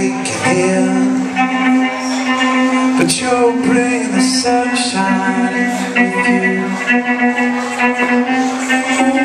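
Live rock band playing: keyboard, bass guitar and electric guitar over drums, with a steady held bass note underneath. A man sings into the microphone near the end.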